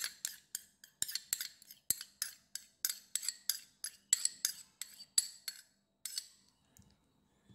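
A metal spoon scraping thick fresh cream out of a plastic cup, a quick run of short scrapes and clicks about three a second that stop about six seconds in.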